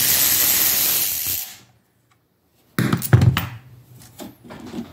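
Power tool running for about a second and a half while a rear shock bolt is taken out, then, after a short gap, a sudden clunk and scattered metal clicks as the shock is handled.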